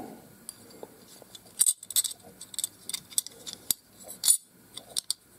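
Light, irregular metallic clicks and clinks as a steel utility blade is handled and seated into the opened zinc die-cast body of a Stanley 99E utility knife.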